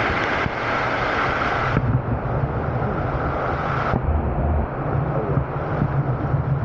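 Waterfall water rushing, a full hiss for the first four seconds, then muffled to a low rumble as the microphone goes under the water.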